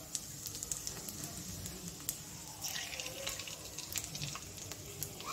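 Panch phoron seeds sizzling in hot oil in a kadai, with many small scattered crackles and pops as they fry.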